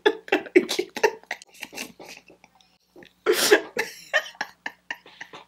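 A woman laughing hard in short, breathy bursts, with a brief pause and then a louder burst of laughter a little over three seconds in.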